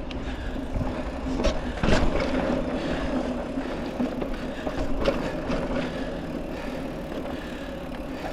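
Mountain bike rolling along with a steady hum, and a few sharp knocks and rattles about one and a half, two and five seconds in.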